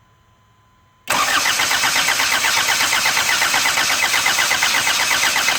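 A 1984 Isuzu Pup's engine being cranked by its starter motor for about four and a half seconds, turning over with an even pulsing rhythm but never firing: it cranks but won't start. The cranking begins suddenly about a second in and stops near the end.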